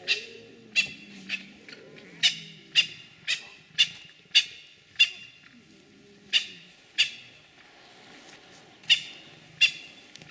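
Lion cubs mewing: about a dozen short, high calls in quick succession, with a pause of about two seconds past the middle.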